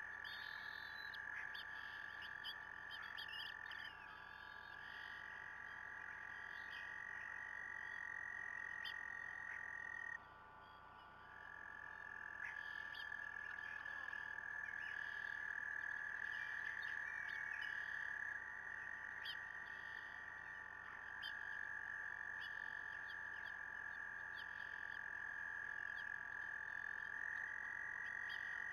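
A chorus of frogs trilling: several long, steady trills overlap at slightly different pitches, with a short lull about ten seconds in. Faint short chirps sound above them.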